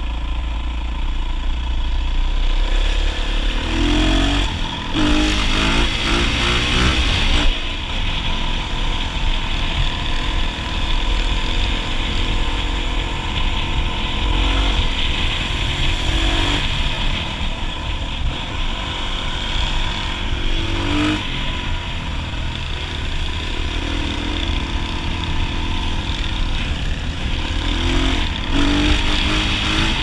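Dual-sport motorcycle engine running steadily under way, with a constant rush of air noise. Its pitch climbs as it revs up a few seconds in, again about two-thirds of the way through, and near the end.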